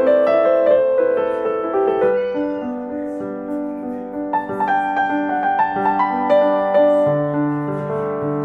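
Background piano music: a gentle melody over chords, with a lower bass note joining about seven seconds in.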